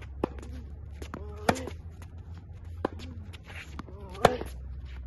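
Tennis rally on a hard court: racket-on-ball hits and ball bounces as sharp pops, about four in all, the loudest about a second and a half in and near the end, with fainter ones between. Short squeaks, most likely sneakers on the court surface, come around the two loud hits.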